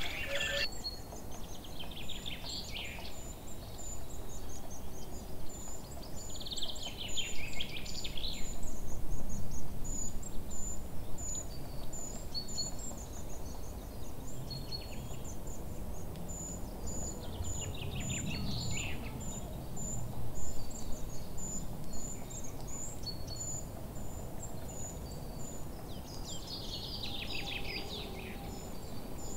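Countryside ambience: an insect chirping steadily in short, high notes a few times a second, while a songbird sings a short descending trill several times. A low rumble, like wind, runs underneath and swells about a third of the way in.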